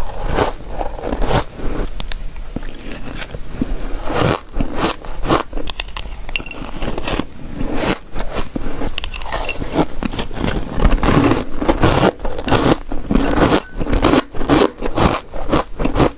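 Freezer frost being chewed close to the microphone: dense, irregular crunching and scraping that goes on without a break.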